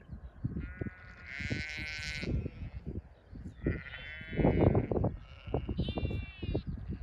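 Aberfield sheep, ewes and lambs, bleating: three high-pitched bleats, the first the longest. Underneath runs a low, gusting rumble that is loudest around the middle.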